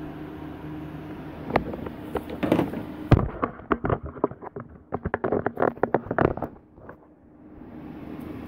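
Irregular clicks, knocks and rattles of hand work and handling around the engine bay, with a sharp knock about three seconds in and a dense cluster after it that stops about six and a half seconds in. A steady low hum runs underneath.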